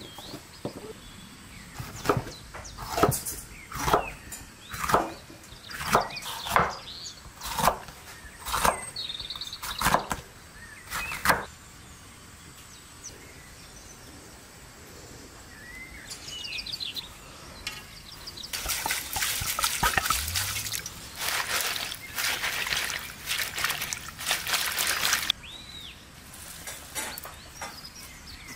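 Knife chopping cucumber against an enamel plate, about a dozen sharp cuts in quick succession, followed later by a few seconds of steady noise. Birds chirp faintly in between.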